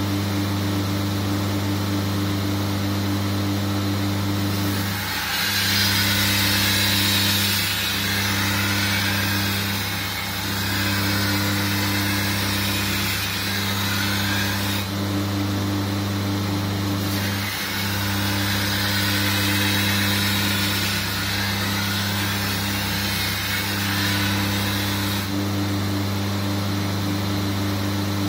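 Belt grinder running with a steady hum, while a steel shashka blade is ground against the abrasive belt in two long passes, each a loud hiss: one from about five to fifteen seconds in, and one from about seventeen to twenty-five seconds. The grinding is the edge bevel being opened on the sabre blade.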